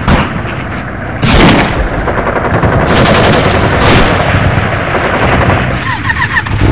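Dubbed battle sound effects: continuous gunfire with rapid machine-gun bursts and single shots over a dense rumble, and a loud bang about a second in.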